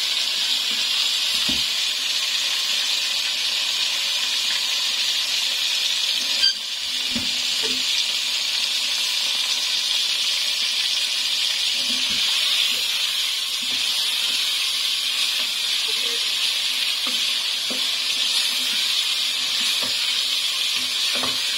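Boneless chicken pieces sizzling steadily as they sear in hot oil and ginger-garlic paste in an aluminium pot, with occasional light knocks of a wooden spoon stirring against the pot. One sharp click about six and a half seconds in.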